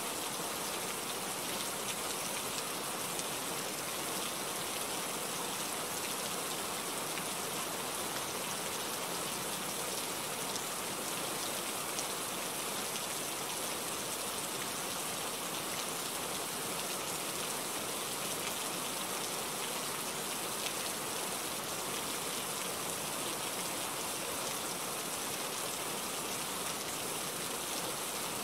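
Steady rain falling on leaves and foliage: an even hiss with faint ticks of single drops, unchanging throughout.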